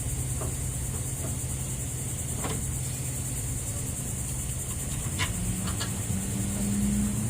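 Steady low engine hum under a high, even insect-like drone, with a few faint clicks. A second, slightly higher hum comes in about five seconds in and gets louder.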